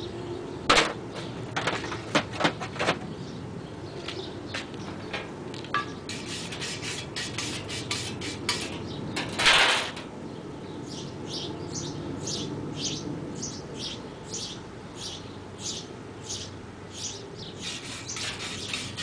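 Metal clinking and knocking, then a run of short, even scraping strokes, about two a second.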